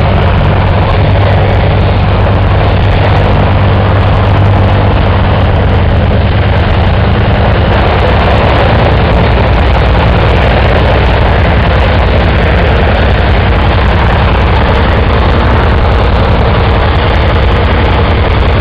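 Antonov An-2 biplane's nine-cylinder radial engine running steadily, loud and unchanging.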